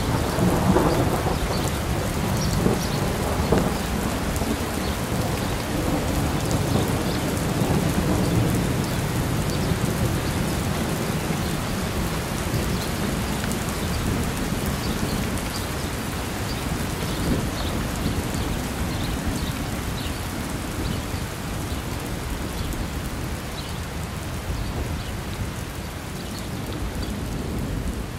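Steady rain with thunder rumbling low, the rumble strongest in the first few seconds, the whole slowly dying down toward the end.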